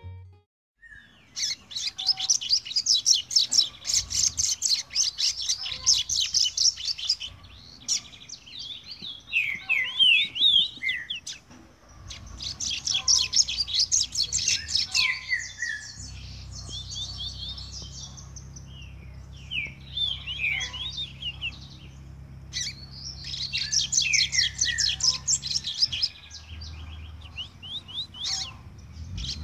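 Caged double-collared seedeater (coleiro) singing in repeated bouts of fast, high trilled phrases with some falling notes, separated by short pauses. It is a young brown-plumaged male still refining its song.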